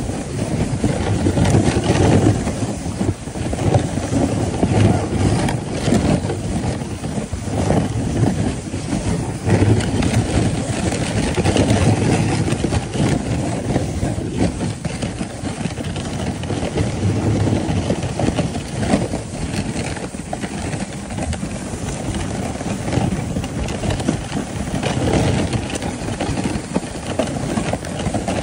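Sled sliding down a packed-snow trail: a continuous rough scraping rumble of the sled on the snow that swells and dips with the bumps in the track.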